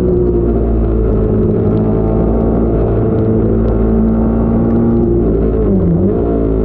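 Sport motorcycle engine running hard on track at fairly steady revs. About six seconds in, the revs dip briefly and then climb again.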